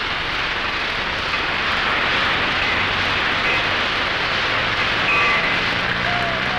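Farm tractor engine running, a steady loud rough roar heavily mixed with hiss.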